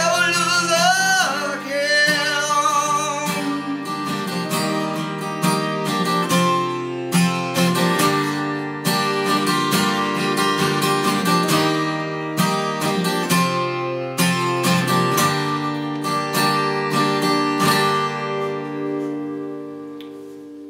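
Takamine acoustic guitar playing the end of a song with picked notes, a voice singing along over the first few seconds. The last notes fade out near the end.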